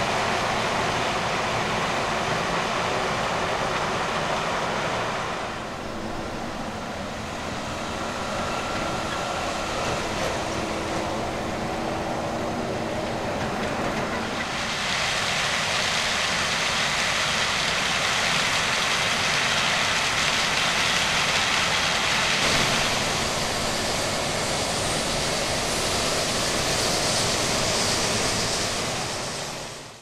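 Heavy farm machinery running at a maize harvest: a steady mechanical drone under a rushing hiss that changes about five seconds in and again around fifteen seconds, then fades out at the end.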